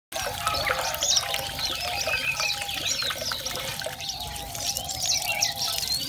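Water trickling and splashing in a shallow bird bath as small finches bathe in it, over constant chirps and short nasal call notes from a flock of aviary finches, zebra finches among them.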